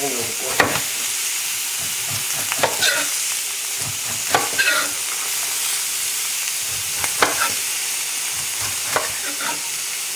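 Steady sizzle of ahi tuna steaks searing in an oiled pan, with a chef's knife slicing the skin off a pineapple and knocking on a wooden cutting board about six times, every second or two.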